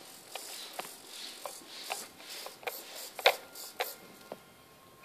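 Irregular sharp clicks and ticks, about a dozen, the loudest a little past three seconds in: a Spektrum RC radio transmitter being handled, its switches and sticks worked while a trainer link is being tested.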